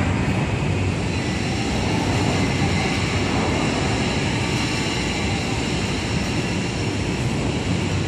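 Steady industrial rumble and hiss of steel mill machinery, an even, unbroken noise with a few faint high steady tones.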